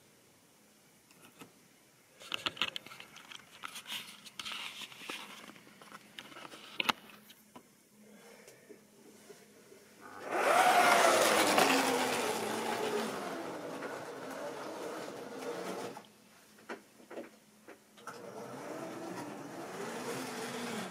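Model railway trains running on sectional track: small electric motor whine with wheels clicking and rattling over the rail joints. The sound is loudest for several seconds in the middle, where the motor whine slides down in pitch, and a steadier rolling run follows near the end.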